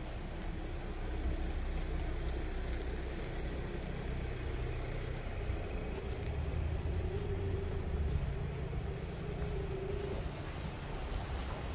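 A car engine runs low and steady close by in a narrow street, a little louder in the middle, over a wash of city traffic noise.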